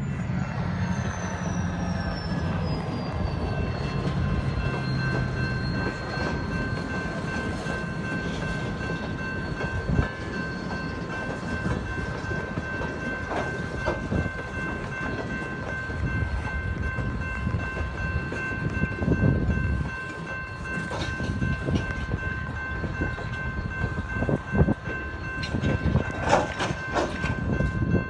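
Freight train of boxcars rolling past a grade crossing: steady wheel-and-rail rumble with irregular clacks, under a steady high-pitched ringing of several held tones.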